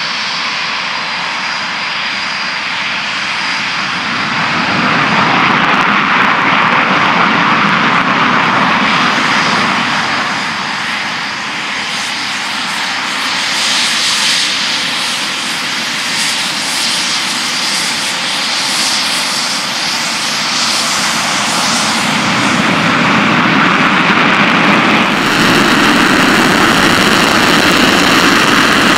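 Twin-engine jet fighters taxiing close by, a loud continuous jet whine and rush from Eurofighter Typhoons. About 25 s in it steps up louder and deeper as a Panavia Tornado runs its engines with afterburners lit, ready for takeoff.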